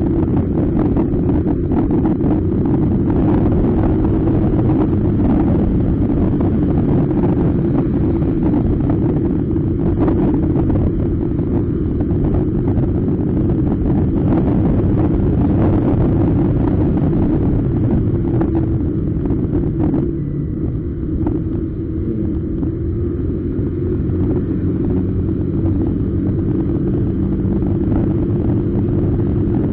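Motor scooter's single-cylinder engine running steadily at road speed, with wind rushing over the helmet-mounted microphone; the engine note eases off briefly about two-thirds of the way through.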